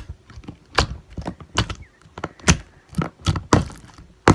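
Sticky slime mixed with cut-up plastic straw pieces being squished and pressed by hand, giving about a dozen irregular sharp pops and clicks.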